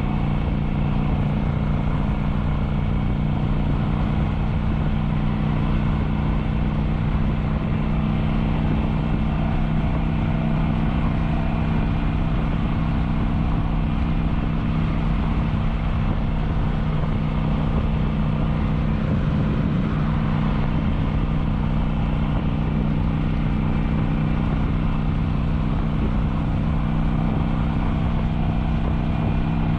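Kawasaki Vulcan 900's V-twin engine running at a steady cruise, with an even rush of wind and road noise underneath.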